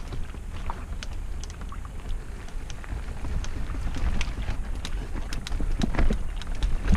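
Mountain bike being ridden along a dirt trail: a steady low rumble of wind and ride noise on the microphone, with many scattered clicks and rattles from the bike.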